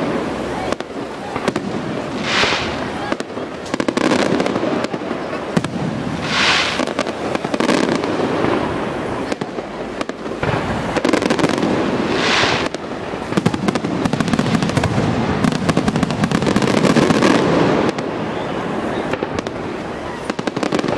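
Fireworks display going off in a continuous barrage of bangs and crackling, with three loud hissing bursts spread through it.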